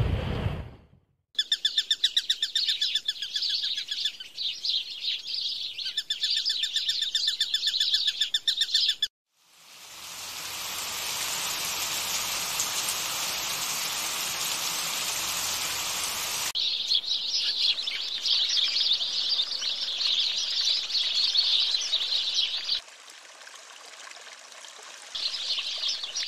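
Birds chirping in fast, rapidly repeated high notes, broken about ten seconds in by a steady hiss lasting about six seconds, after which the chirping comes back.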